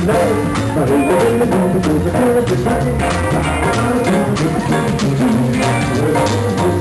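Live Latin dance band playing, with congas and a drum kit keeping a steady beat.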